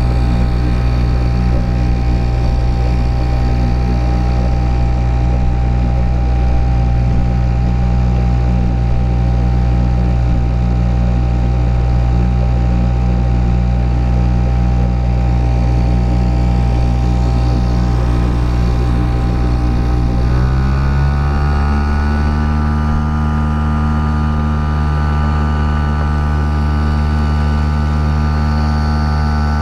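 HDX 2.6 hp two-stroke outboard motor running under way on an inflatable boat. About two-thirds of the way through, its pitch rises quickly as the engine speeds up, then holds steady at the higher revs.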